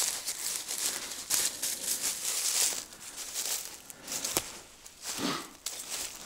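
Footsteps crunching and rustling through dry leaf litter and grass. The steps come irregularly, about one or two a second, with a single sharp snap about four seconds in.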